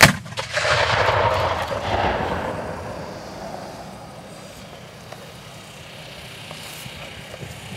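A Civil War–era muzzle-loading field cannon fires a single black-powder salute shot: one sharp blast, then a long echo that dies away over about three seconds.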